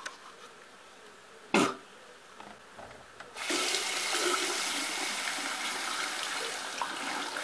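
Bathroom tap turned on about three seconds in and running steadily into the sink. Before it, only faint quiet noise, broken by one brief loud sound about a second and a half in.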